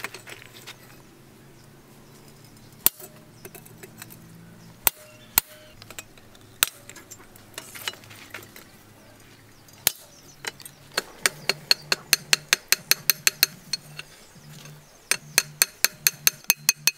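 Hand hammer striking steel on a small anvil, with a chisel set on the blade: a few separate sharp blows in the first ten seconds, then a fast run of ringing strikes, about four a second, starting about eleven seconds in, with a short break before they resume.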